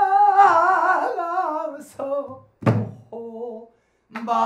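Pansori singing: a long held note with a wide vibrato that sinks and fades, cut by a single sharp stroke on the buk barrel drum about two and a half seconds in, followed by short sung fragments.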